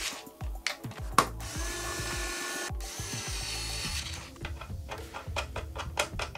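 Clicks, knocks and scraping of airsoft rifle parts being fitted together during assembly, over background music with a low bass line.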